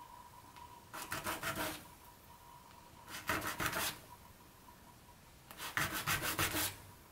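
A small plastic model window frame rubbed back and forth on a sheet of sandpaper, sanding its edge to give the glue a better hold. Three short bursts of quick scratchy strokes, the first about a second in, the next near three seconds and the last, slightly longer, near the end.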